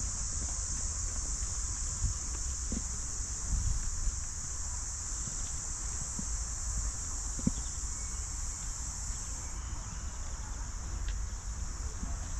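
Steady, high-pitched chorus of insects, with a low rumble underneath and a few scattered faint knocks.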